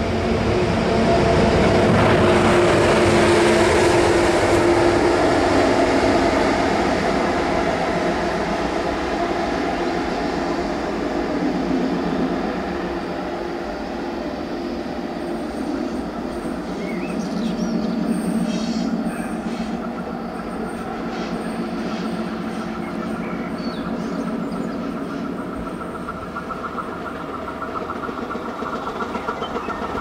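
Electric trains running on a curved double-track line. Loudest a few seconds in, with a train passing close, then an electric locomotive approaching around the middle. A DB class 426 electric multiple unit draws near at the end, with a steady whine appearing.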